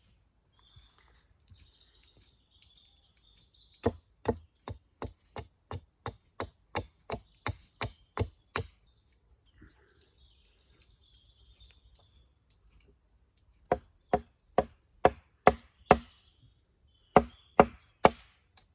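A wooden wedge being driven into a lashed log joint with repeated blows: three runs of sharp wooden knocks at about three a second, the first of about a dozen, then about seven, then a few near the end.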